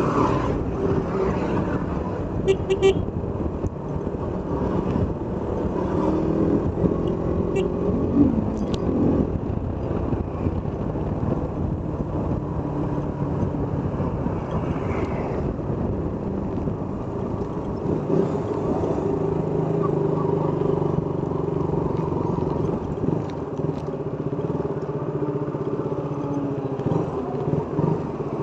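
KTM Duke motorcycle's single-cylinder engine running under way, its pitch shifting as the rider speeds up and eases off, with a brief rise about eight seconds in, over road and wind noise.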